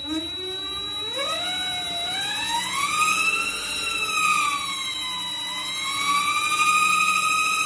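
Vevor 8x14 mini lathe's brushed DC motor running up with the change gears off: a howling whine that climbs steeply in pitch over the first three seconds as the speed knob is turned up, sags about five seconds in, then rises again and holds, over a steady high whistle. The howl is brush noise from the motor.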